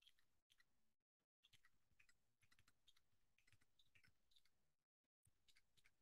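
Faint typing on a computer keyboard: quick runs of keystroke clicks broken by short pauses.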